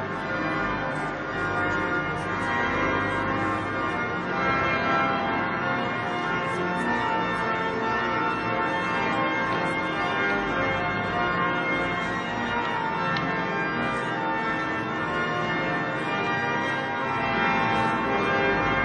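Church bells pealing continuously, many bells blending into one steady ringing wash, heard from inside the stone cathedral nave.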